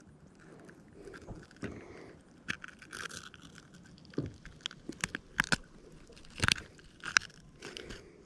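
Irregular clicks, knocks and scrapes of hands and tackle at work in a kayak while a bass's hook is worked free, the sharpest knocks coming in the middle and later part.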